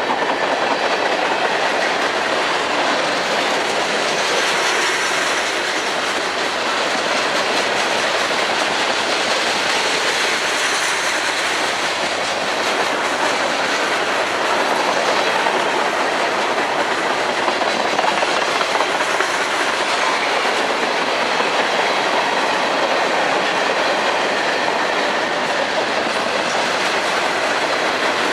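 Train cars rolling steadily past, a continuous rumble of steel wheels on rail with clickety-clack over the rail joints.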